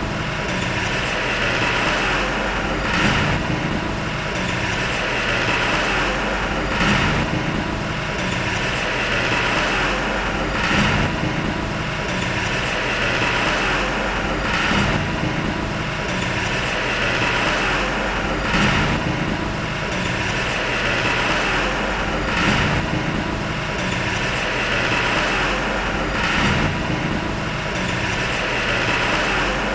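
Heavy diesel earthmoving machinery running steadily, with a brief swell about every four seconds.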